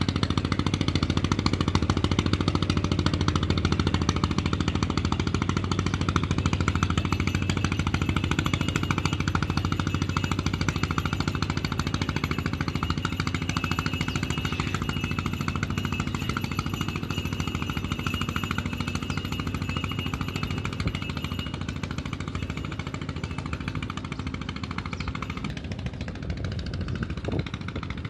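Fishing boat engine running steadily with a rapid, even chugging, easing off a little near the end.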